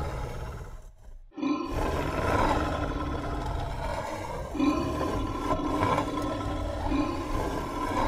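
A large beast's growl sound effect: a continuous low, rumbling growl that cuts out briefly about a second in, then resumes.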